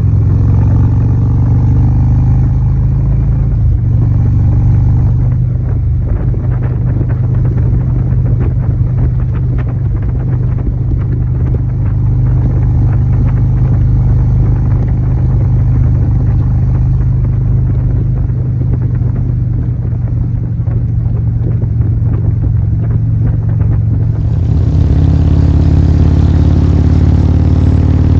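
A vehicle engine idling loudly with a deep, steady rumble. About 24 seconds in, the sound takes on a brighter, sharper edge.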